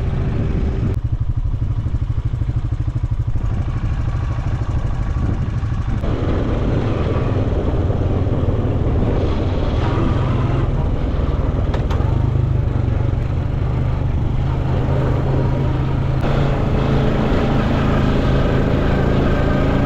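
Quad bike engine running steadily under way, with a few short knocks over it.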